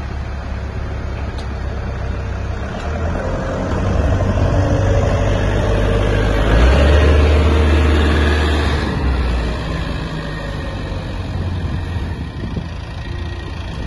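Heli forklift engine running while the forklift carries a large crated machine. The engine speeds up for several seconds midway and then settles back.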